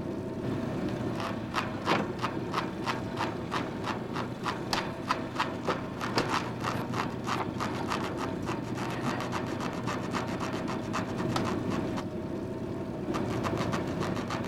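Rasping and irregular clicking, at times about three or four clicks a second, as an inflated puffer fish is held and squeezed in the hand, over a steady low hum.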